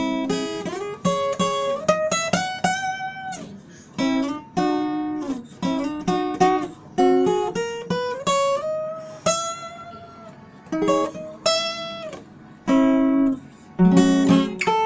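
Music: an acoustic guitar strumming chords, with a held melody line over it that slides between notes.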